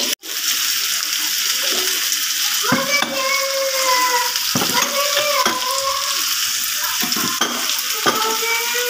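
Potato slices sizzling steadily as they fry in oil in a frying pan, with a few knocks of a utensil against the pan.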